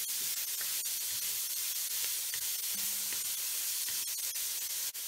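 Chopped onions, mushrooms and garlic sizzling steadily in bacon fat in an enameled cast-iron pot as they are stirred with a wooden spoon, with a few light clicks around one second in and again near the end.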